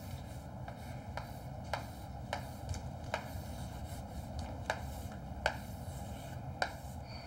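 Chalk writing on a chalkboard: a run of sharp taps and short scratches as the letters go up, about two a second, over a low steady hum.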